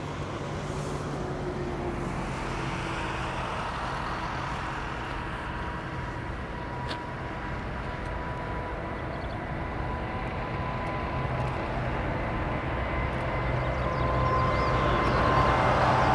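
Airbus A380's four Rolls-Royce Trent 900 turbofan engines running, a broad rumble with a steady whine on top, growing steadily louder as the jet rolls down the runway.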